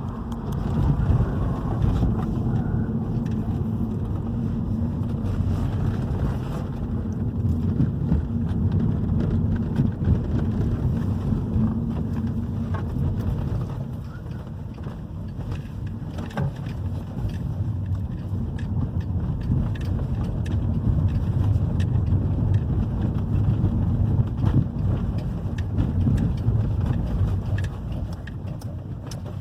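2011 Hyundai i30 driving on a road test: steady low rumble of the 2.0 petrol engine and tyres, with scattered light knocks from the road, its stabilizer-bar links and bushings freshly replaced.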